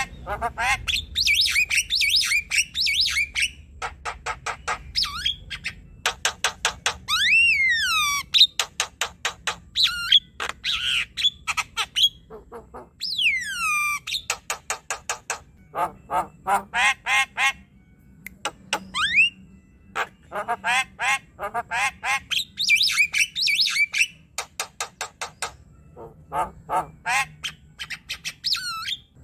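Javan myna singing a long, varied song: fast runs of harsh, rapidly repeated chattering notes broken by clear whistles. One whistle rises then falls about seven seconds in, and another falls away near thirteen seconds.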